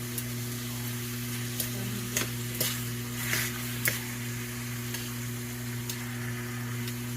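Chicken sizzling in a skillet, with a utensil scraping and tapping against the pan several times in the first half, over a steady low hum.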